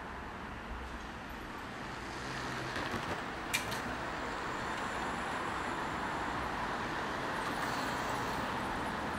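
Steady hum of road traffic from city street. A single sharp click sounds about three and a half seconds in.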